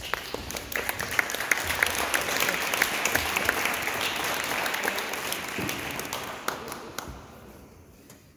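Audience applauding, starting abruptly and dying away over the last two seconds or so.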